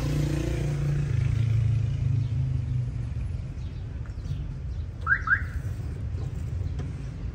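Low rumble of a passing motor vehicle, strongest in the first three seconds and then easing off. About five seconds in come two quick, high rising chirps close together.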